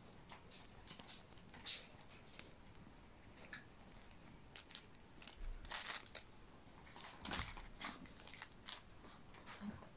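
Small Chihuahua-type dog gnawing at a candy in a clear plastic wrapper: faint, irregular crinkling and crunching of the wrapper, with a couple of louder bursts in the second half.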